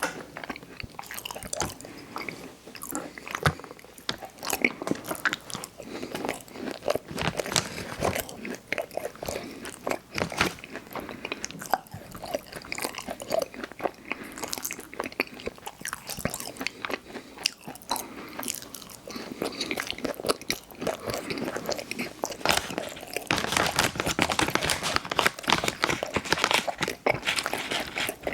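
Close-miked ASMR eating: a person biting and chewing Chips Ahoy! Chewy Hot Cocoa cookies with cream, a dense run of small crunching and mouth clicks that gets busier and louder near the end.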